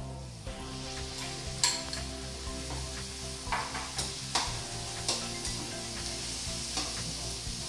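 Ground pork sizzling as it hits hot oil and browned onion in a steel wok, the sizzle building about half a second in. A metal spatula scrapes and clicks against the wok several times as the meat is stirred.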